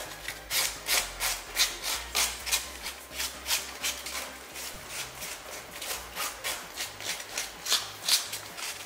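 Hand sanding with 120-grit sandpaper over the chewed, splintered wood at the end of a windowsill, in quick, even back-and-forth strokes that take off the loose excess.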